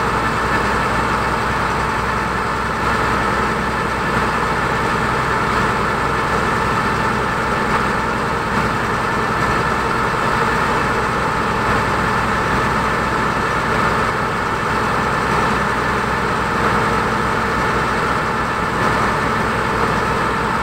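Engine of a passenger ferry launch running steadily under way, heard on board as a constant drone with a low rumble and a steady hum.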